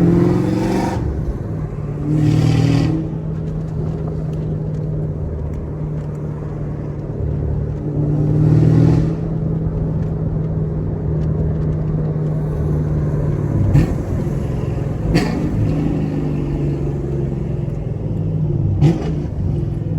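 Chevrolet Camaro SS 1LE's 6.2-litre V8 running at a steady low cruise, swelling louder briefly a few times, with a few short sharp knocks in the second half.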